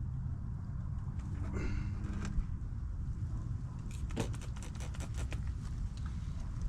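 Hand spray bottle squirted about eight times in quick succession, with short hissy spurts, spraying soapy water onto a propane fitting to check it for leaks. Low wind rumble runs underneath.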